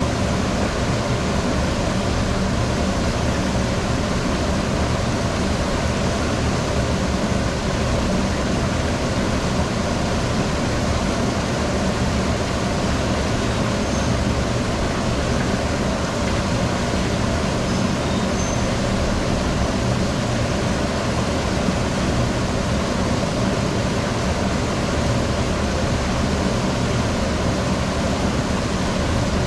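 Laboratory flume running: an unchanging rush of water flowing through the channel, with a steady low machine hum underneath.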